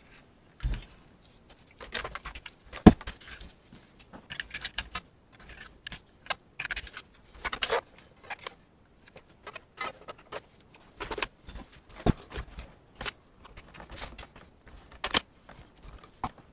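Plastic parts of a Mercedes W126 instrument cluster being handled and fitted together: irregular light clicks, taps and knocks as the speedometer goes back into the cluster housing, with soft rustling between them and a sharper knock about three seconds in.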